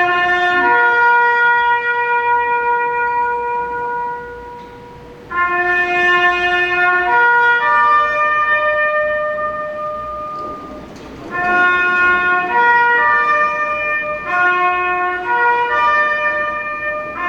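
A solo wind instrument playing a slow, solemn melody of long held notes in phrases with short pauses, the music for a moment of silent tribute.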